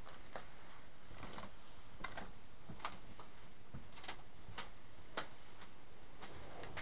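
Irregular light clicks and taps, roughly one or two a second and unevenly spaced, over a steady hiss: a person moving about and coming to sit at a desk.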